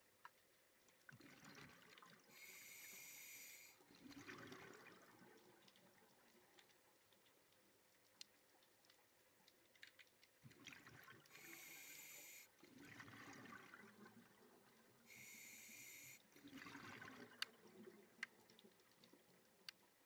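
Scuba diver breathing through a regulator underwater, three breaths: each a hissing inhale through the demand valve next to a rushing gurgle of exhaled bubbles. There are a few sharp clicks near the end.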